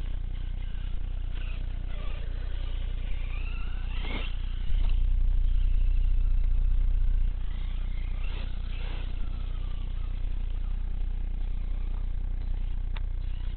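Electric motor and drivetrain of a 1/6-scale Redcat Shredder RC truggy whining up and down in pitch as it is throttled, with two marked rising-and-falling whines about four and eight seconds in. Under it a steady low rumble, louder for a couple of seconds from about five seconds in.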